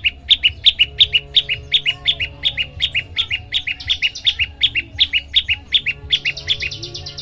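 Prenjak lumut singing: a fast, evenly repeated run of sharp chirps, about five a second. A faster, higher trill joins in around four seconds and again near the end.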